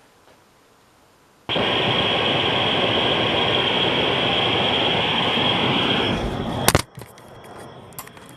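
Cambridge Audio Minx X201 subwoofer switched on with no audio input, bursting suddenly into a loud, steady rushing noise about a second and a half in. This is the unit's fault, which the repairer finds is more likely a shorted diode at the Class D amplifier output than a failed STA309A processing chip. Near the end a couple of sharp clicks, and the noise carries on at a lower level.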